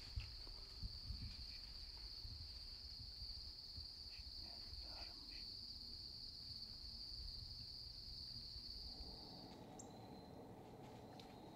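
Steady high-pitched chorus of insects, crickets singing continuously, with a low rumble underneath; the chorus stops at a cut about nine and a half seconds in, leaving only faint hiss.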